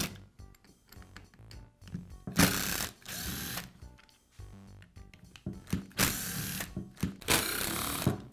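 Cordless screwdriver running in several short bursts, about a second each, backing out the screws from the rear handle half of a Makita angle grinder.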